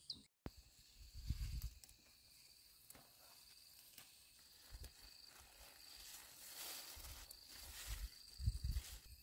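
Watermelon leaves and vines rustling as hands push through them, with a couple of short low bumps from handling, one about a second in and one near the end. Insects trill steadily and faintly in the background.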